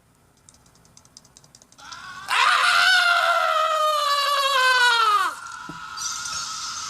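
A cartoon character's long scream, about three seconds, sliding down in pitch before it cuts off. It follows some faint rapid ticking.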